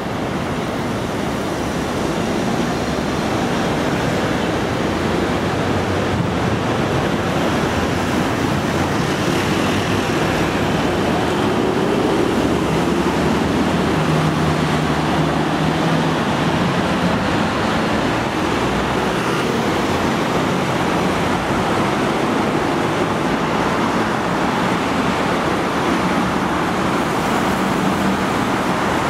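Steady road traffic noise from a busy multi-lane road, with one vehicle's engine hum standing out briefly about halfway through.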